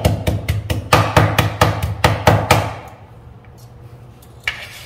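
Rapid knife chopping on a plastic cutting board, about six strokes a second, as calamansi lime peel is minced; the chopping stops a little over halfway through, and a single short knock follows near the end.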